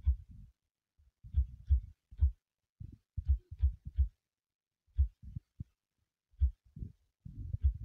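Fingertips tapping on a smartphone's touchscreen while typing on the on-screen keyboard: dull, irregular thuds, each with a faint click, about two or three a second in small groups with short pauses.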